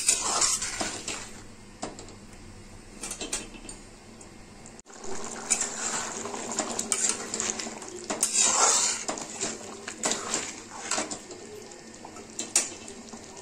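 A metal spatula scrapes and clinks against a metal kadhai as a thick, simmering potato curry is stirred, in irregular strokes with a sharp click near the end.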